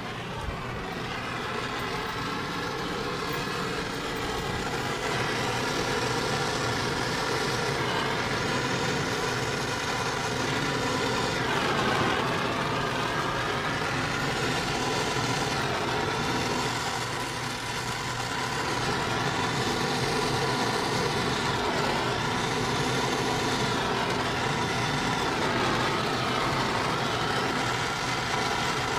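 A motor or engine running steadily, with a brief dip in pitch about twelve seconds in.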